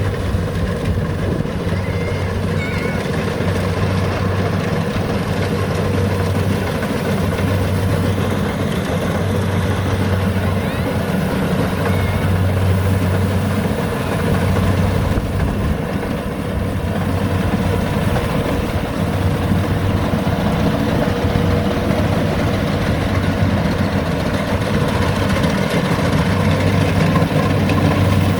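Rice combine harvester's engine running steadily, with a low hum that swells and eases every second or two.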